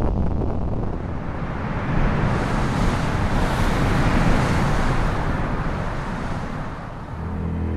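Deep rumbling noise with a rushing hiss that swells about two seconds in and dies away again: a sound effect standing for the earthquake. Near the end a low, dark music drone comes in.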